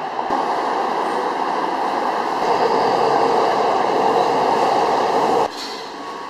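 Subway train noise: a steady rushing rumble that swells over the first few seconds, then cuts off abruptly about five and a half seconds in, leaving quieter background.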